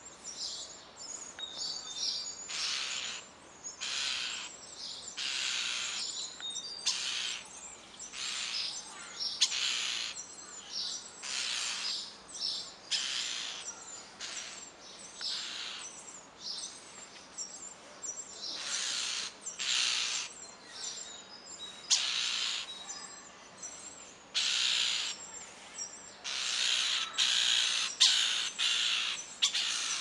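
Common starlings calling around a nest box: a long, nearly continuous run of harsh, hissing calls, each under a second, one after another with short gaps.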